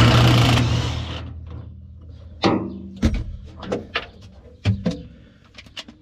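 Cordless impact wrench with a 3/4-inch socket on a swivel, hammering a skid-steer cab bolt loose. It stops about half a second in and dies away over the next second. Sharp clicks and knocks follow.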